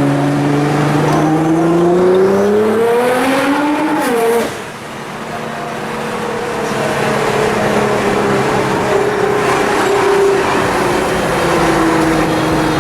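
Nissan GT-R's twin-turbo V6 with a titanium exhaust, heard from inside the car, accelerating hard with its pitch climbing for about four seconds. The note then falls away abruptly. After that the engine runs steadily, its pitch slowly easing down.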